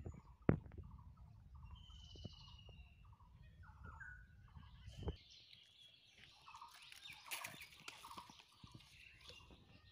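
Faint bird calls, short chirps repeated every fraction of a second, with a couple of sharp clicks and a brief rustle about three quarters of the way through.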